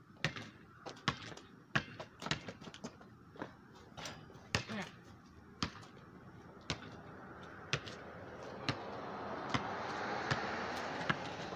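Basketball bouncing on a paved driveway: sharp, irregularly spaced bounces as it is dribbled and played. From about two-thirds of the way in, a steady rushing noise swells up beneath the bounces.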